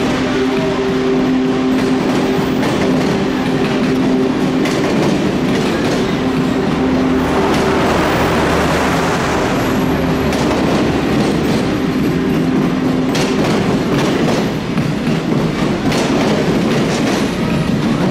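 Union Pacific passenger cars rolling slowly past close by, their steel wheels clicking and clattering over the rail joints. A steady hum runs under it for most of the time, and the noise turns uneven near the end as the last car goes by.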